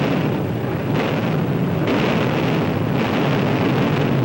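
Building implosion: demolition charges fire with a sudden loud blast, followed by a sustained rumbling roar as the multi-storey hotel tower collapses, with a few sharp cracks about one, two and three seconds in.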